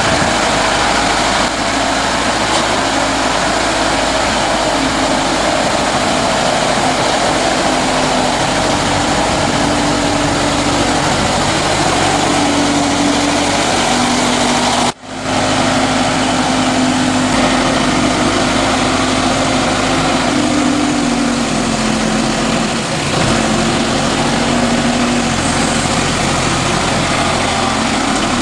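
Lift truck running, a steady engine noise with a humming tone that shifts up and down in pitch several times. The sound cuts out for a moment about halfway through.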